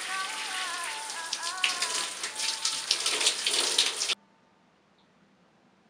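Shower spray hissing and splattering, with sharper irregular splashes growing louder from about two seconds in; the water sound cuts off abruptly about four seconds in, leaving near silence.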